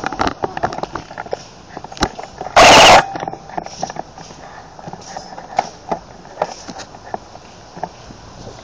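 Handling noise picked up by a phone camera mounted on an airsoft rifle: scattered clicks and knocks as the gun is moved. About two and a half seconds in comes one loud, distorted rush lasting under half a second.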